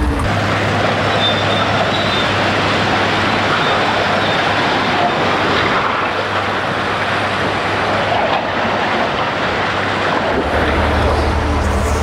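A loud, steady rushing noise set off by touching a control on construction equipment, with a deeper rumble under it that swells up again about ten and a half seconds in.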